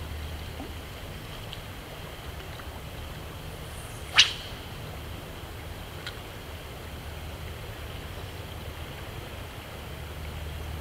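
A fishing rod swishing through the air in a single quick cast about four seconds in, a short sharp whip-like swish, over a steady low background rumble.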